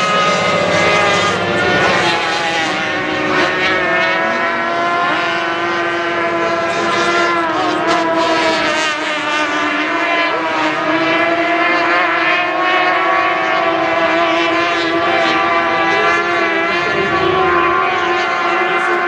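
Several O-500 class racing powerboats' outboard engines running at high revs, their tones overlapping and slowly rising and falling in pitch as the boats pass and turn.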